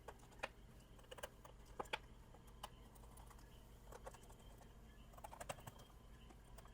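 Faint, irregular small clicks and taps of a screwdriver and screws against a laptop's plastic bottom cover as the cover screws are driven back in.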